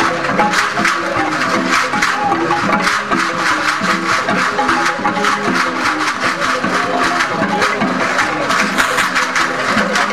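Traditional juju dance music: fast, steady percussion of sharp wood-block-like clicks and rattles, with a pitched melody of short notes running through it.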